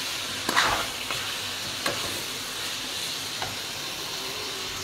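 Diced meat frying with a steady sizzle in a nonstick wok as a wooden spatula stirs it, with a few short scrapes of the spatula against the pan.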